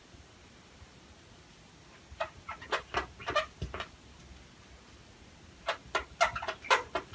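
Pen writing on a sheet of paper on a table: two bursts of quick scratching strokes, about two seconds in and again near the end, over a faint steady fan hum from the running server.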